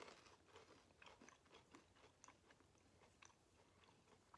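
Faint crunching and chewing of matcha cream-filled biscuit sticks, a scatter of small crisp clicks.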